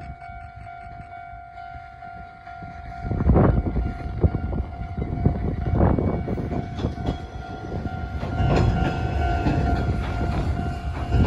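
Nishitetsu electric commuter train passing close by. From about three seconds in, its wheels rumble and clack loudly over the rail joints. A steady high tone sounds underneath.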